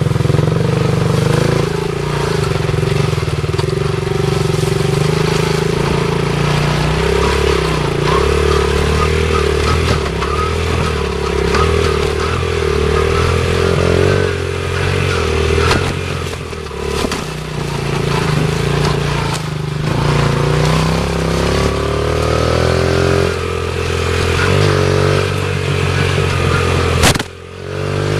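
Dirt bike engine running under throttle on a rough trail, the revs rising and falling, with clatter from the bumps. About a second before the end, a sharp knock and a brief drop in the engine sound.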